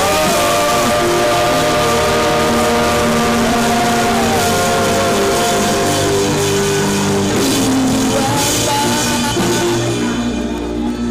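Loud band music with drums and guitar, long held chords over a full, dense backing; it thins out near the end.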